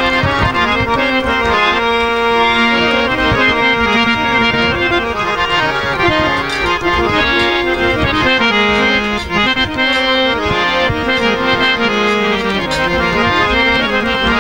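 Harmonium playing a dhamal melody over sustained reed chords, with drum strokes underneath, before the singing begins.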